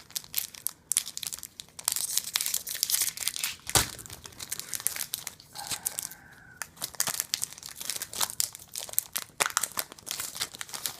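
Foil wrapper of a Pokémon card booster pack crinkling and tearing as it is opened by hand, in irregular crackles with one sharper snap about four seconds in.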